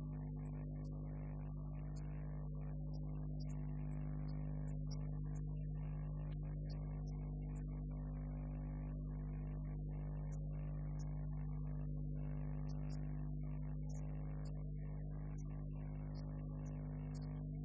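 A steady electrical hum and buzz with a strong low pitch and a stack of overtones, unchanging in level.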